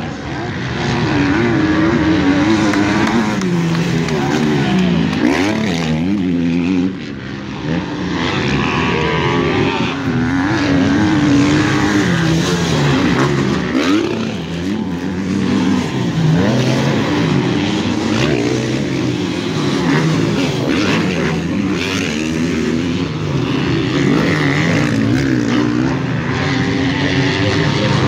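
Several motocross bikes running on a dirt track, with overlapping engine notes rising and falling as riders open and close the throttle.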